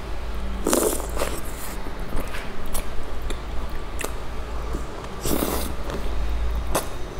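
Close mouth sounds of wet biting and sucking on a slice of milk-soaked bread. Two louder bites or slurps come about a second in and about five seconds in, with smaller mouth noises between, over a steady low hum.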